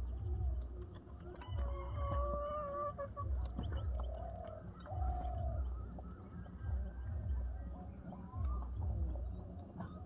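Domestic pigeons cooing, a low pulsing call repeated every couple of seconds. Another bird's higher, drawn-out calls come in about a second and a half in and again near the middle.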